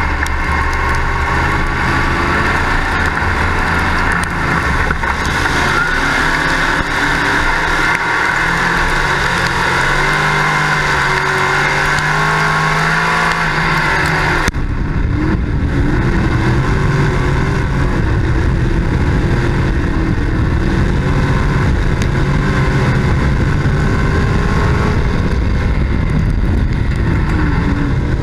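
Dirt-track race car's engine racing on the track, heard from an in-car camera, loud and steady with its pitch rising and falling as the driver works the throttle; the sound changes abruptly about halfway through.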